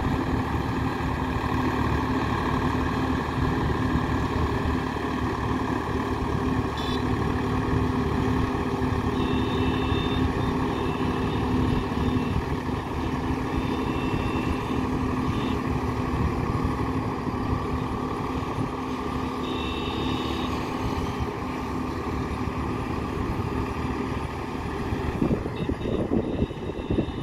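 Swaraj 855 tractor's three-cylinder diesel engine running steadily under load while it drives a rotavator through a flooded paddy field. A thin high tone comes and goes several times over the engine's drone.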